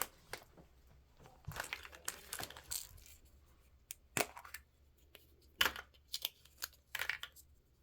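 Wrapping on a taped mystery ball being torn and crinkled by hand as it is unwrapped. Irregular crackling with a few sharp clicks, about four seconds in and again near six seconds.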